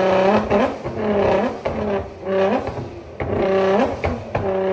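Background music: a repeating pitched riff of short held notes that bend at their ends, with a steady beat of about one note every 0.8 seconds.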